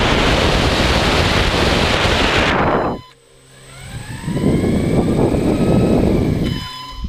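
Radio-controlled model aircraft heard from its own onboard camera: loud rushing of motors, propellers and wind that cuts off abruptly about three seconds in, then motor whine gliding up and down in pitch as a second loud rush builds and fades near the end.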